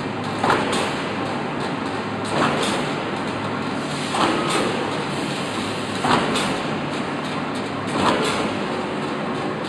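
Steel-plate cut-to-length line running with a steady mechanical din, and a sharp clank followed by a short rushing slide repeating evenly about every two seconds, five times: the regular cycle of the line cutting the strip into plates.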